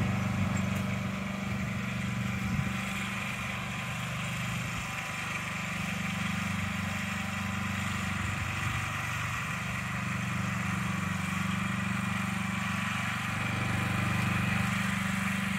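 Riding lawn tractor's engine running at a steady speed as the tractor drives itself slowly across the lawn, about 0.75 metres a second, with the mower blade not engaged.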